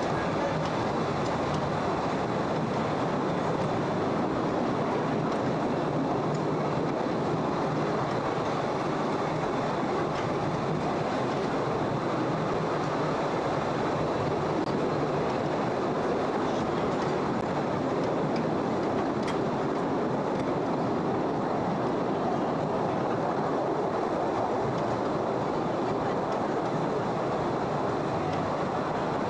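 Postojna Cave tourist train running on its rails through the cave, heard from aboard: a steady rolling rumble of the carriages on the track.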